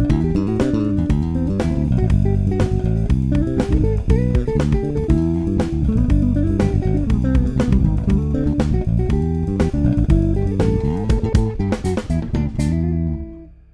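Six-string electric bass with EMG 45J pickups, played fingerstyle in a fast run of plucked notes with sharp attacks. Near the end the last note dies away.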